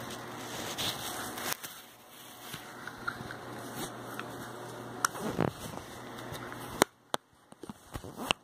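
Handling noise from a phone being moved about and gripped: rustling and rubbing against the microphone, then several sharp knocks in the last second and a half as the phone is set down and its lens covered.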